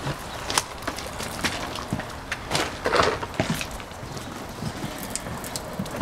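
Wet river pebbles knocking and rattling in a plastic bucket as it is lifted and carried, with footsteps on a wooden deck. There is a louder burst of rattling about three seconds in.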